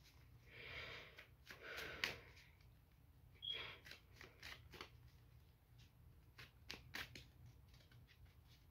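Faint handling of tarot cards: a few soft swishes of cards sliding against each other in the first few seconds, then scattered light clicks and taps as the cards are shifted and laid down.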